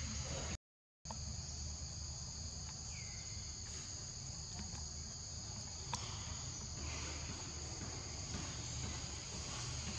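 Steady, high-pitched drone of an insect chorus in forest undergrowth, broken by a sudden half-second gap of silence near the start.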